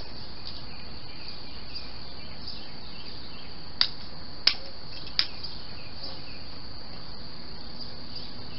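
Steady high-pitched insect chorus, like crickets, with three short sharp clicks or knocks close together around the middle.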